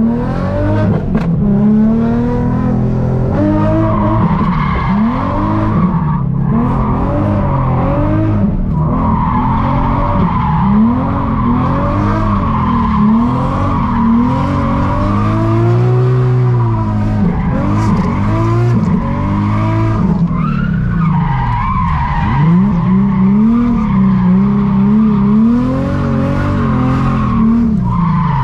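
Nissan 350Z's V6 engine revving up and down over and over while drifting, with tyres squealing, heard from inside the cabin.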